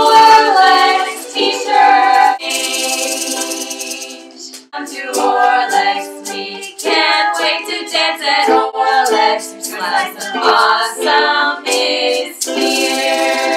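A small group of women singing together, accompanied by strummed ukuleles.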